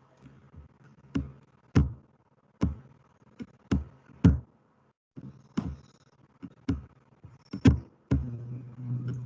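A string of sharp, irregular knocks or taps, more than a dozen, some of them heavy, over a low hum that grows louder about eight seconds in.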